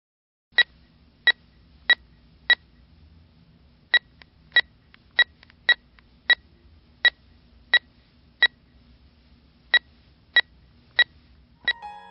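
Short, sharp electronic beeps from a stereo system, all at one high pitch, about sixteen of them in uneven succession, roughly one and a half a second with two slightly longer pauses, over a faint low hum.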